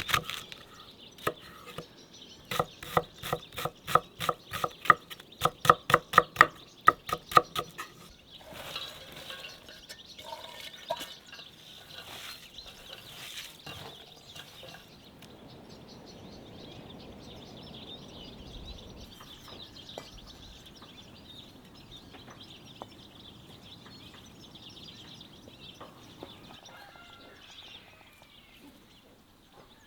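Rhythmic clinking of a kitchen utensil against metal cookware, two to three ringing strokes a second for about eight seconds, then lighter scattered clatter. Birds chirp in the background throughout.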